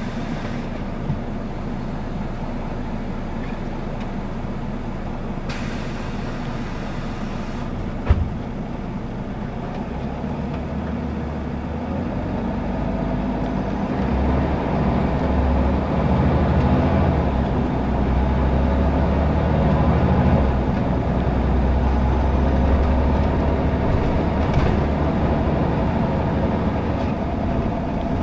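Scania L94UB city bus's diesel engine heard from inside the cabin, running steadily, then pulling harder and louder from about twelve seconds in as the bus gathers speed. A single sharp knock comes about eight seconds in.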